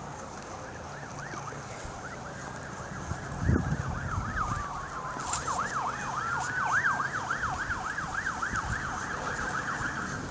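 Police car sirens approaching, more than one at once: a slow rising and falling wail overlapped by a fast yelp about three to four cycles a second. A short knock on the microphone about three and a half seconds in.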